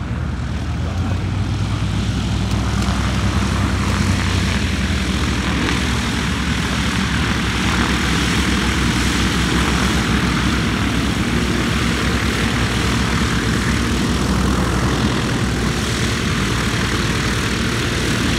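A de Havilland Dragon Rapide twin-engine biplane taxiing, its two propeller engines running steadily at low power and growing a little louder as it comes closer.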